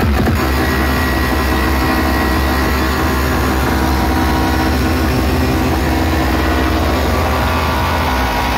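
Tall DJ sound-system speaker stacks playing a loud, steady drone heavy in deep bass, with no beat.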